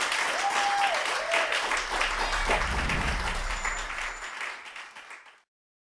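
Audience applauding, with a few voices calling out near the start; the applause fades and ends about five seconds in.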